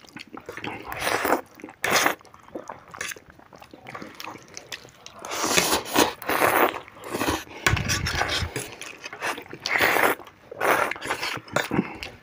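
Two people eating instant noodles: wet slurps and chewing in irregular bursts, with forks scraping on the plates.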